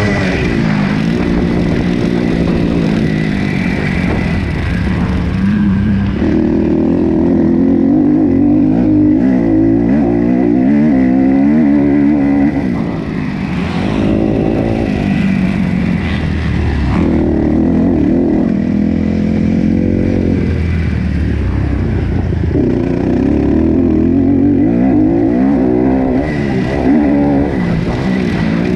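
Kawasaki KX250F single-cylinder four-stroke motocross engine racing at full throttle. The pitch climbs repeatedly through the gears and drops back as the rider shuts off, with a brief lull about halfway through.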